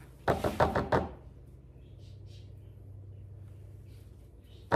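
Silicone spatula knocking and scraping against a glass baking dish, a quick run of four or so sharp knocks about half a second in. A low steady hum sits underneath.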